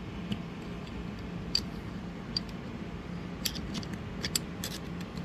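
Scattered light metallic clicks and ticks from small motorcycle engine parts being handled and fitted during a rocker box rebuild, several close together in the second half, over a steady low hum.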